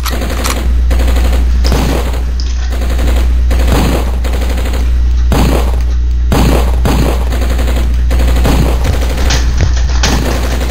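A loud steady low hum with a series of sharp bangs at irregular intervals, about one or two a second.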